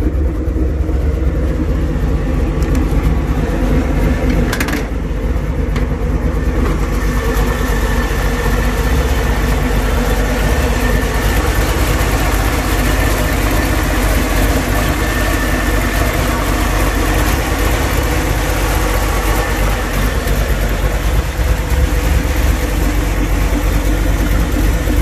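383 cubic-inch small-block stroker V8 idling steadily with a low, even rumble. About five seconds in there is a short knock, after which the engine sounds brighter and closer.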